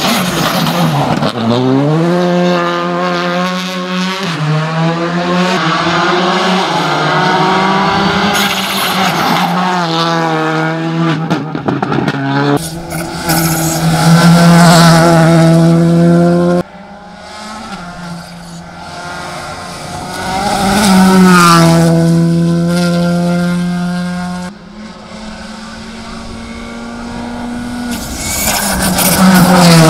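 Skoda Fabia R5 rally car's engine at full throttle, its pitch climbing steeply through each gear and dropping back at every shift. The car is heard over several passes, each growing louder as it approaches and fading as it goes by.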